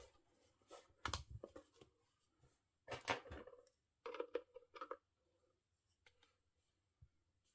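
Hands handling a small ABS-plastic wireless charger clock while looking for a way into it: scattered light clicks, knocks and short scrapes of plastic.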